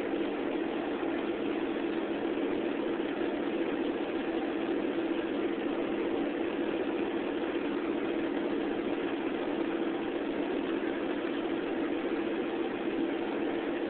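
A steady, even mechanical hum with no breaks. No separate splashes or laps stand out above it.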